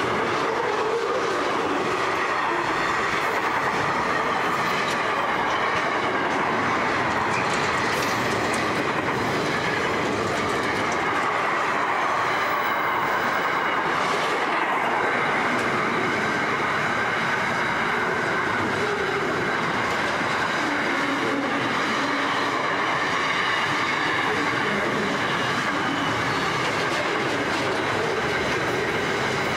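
Freight train wagons rolling past, louvre vans giving way to container flat wagons: a steady, even noise of steel wheels running on the rails. Faint high squealing tones ride over it.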